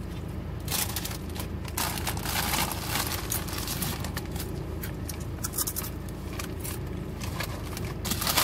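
Rustling, crinkling and scraping as plastic food packaging is handled close up, over a steady low hum inside a car's cabin.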